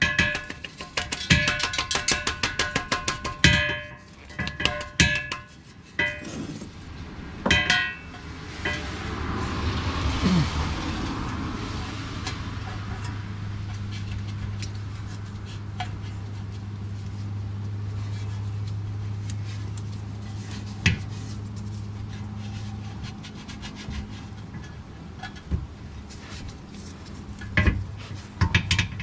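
Metal hand tools clinking and rattling against steel suspension parts in a quick run of sharp ringing clicks during the first few seconds, then scattered knocks, followed by a steady low hum through most of the rest.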